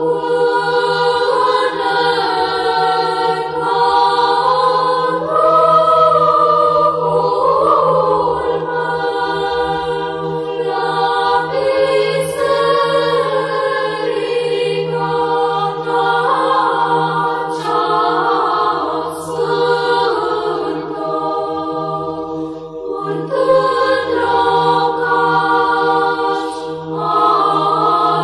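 Romanian Orthodox church choir chanting slowly, several voices singing a drawn-out melody over a low note held steady underneath.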